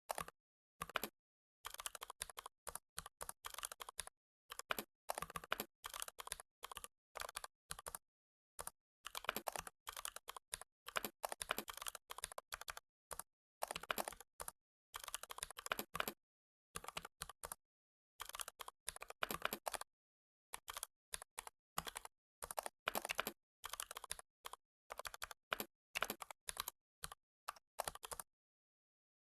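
Computer keyboard typing: runs of rapid keystrokes in bursts with short pauses between them, stopping near the end.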